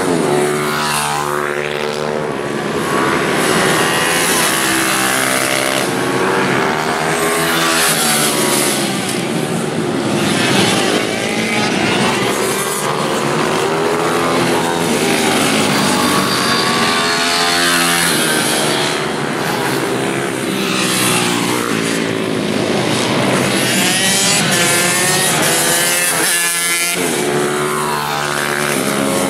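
Pit bikes and Ohvale minibikes racing past, their small engines revving high and rising and falling in pitch through the gears, one bike after another.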